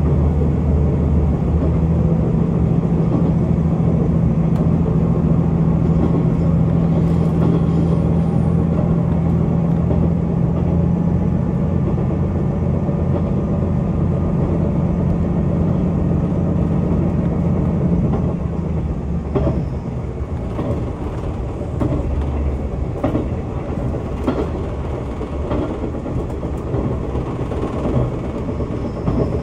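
KiHa 185 series diesel railcar heard from inside the car: the diesel engine runs steadily under power, then about 18 seconds in its note fades out and the train rolls on with a lower rumble and scattered clicks and knocks.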